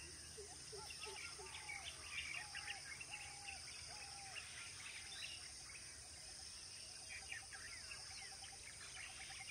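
Several birds calling and chirping, with a run of short arched notes in the first few seconds and a quick trill near the end, over a steady high-pitched insect drone.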